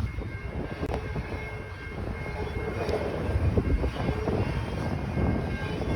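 Train passing at speed: a dense, uneven rumble of wheels on the rails, with a few sharp clicks.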